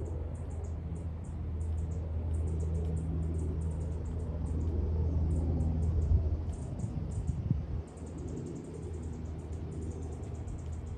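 Eurocopter EC225 Super Puma helicopter passing at a distance: a steady low rotor and turbine drone that falls off noticeably about eight seconds in as it draws away. Rapid high-pitched chirps run over it throughout.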